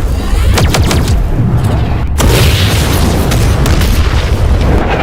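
Loud, bass-heavy string of dubbed-in boom and impact sound effects, with many sharp hits close together.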